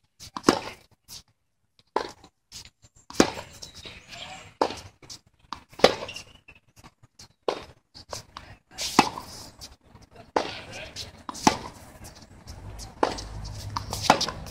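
Tennis balls struck by racquets and bouncing on a hard court during a baseline rally: sharp pops about every second or so, some louder (racquet hits) than others (bounces).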